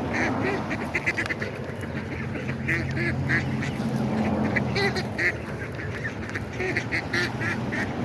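A flock of ducks quacking, many short quacks overlapping and following one another throughout.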